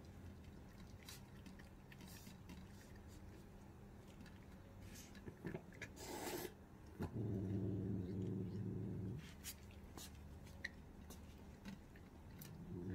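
Cats eating tuna from steel bowls, with faint scattered clicks of chewing and licking. About seven seconds in there is a low cat growl lasting about two seconds, and it starts again near the end.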